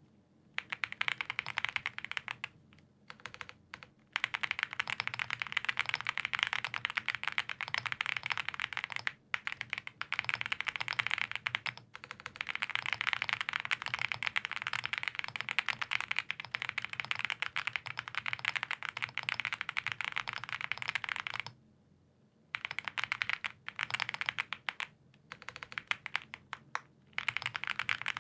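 Continuous fast typing on a custom mechanical keyboard with lubed Gazzew Boba U4T tactile switches on a POM plate, dense key clacks with brief pauses, the longest about three-quarters of the way through.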